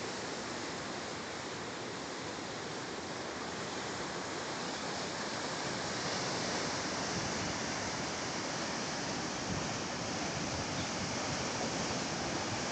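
Ocean surf breaking and washing over rocks: a steady rush of water, a little louder from about halfway through.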